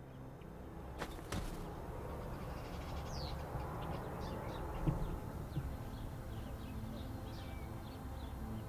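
Birds chirping over a steady outdoor hiss, with a couple of light clicks just after a second in and a single thump about five seconds in.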